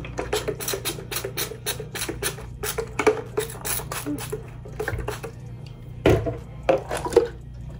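Plastic trigger spray bottle spritzing hair: a rapid series of short hissing squirts, about four a second, for the first five seconds, then a few more near the end.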